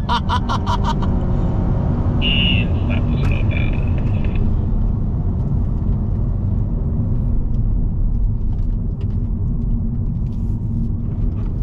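Steady engine and road noise of a Honda Civic RS e:HEV under hard acceleration, heard from inside the cabin. A man laughs briefly at the start.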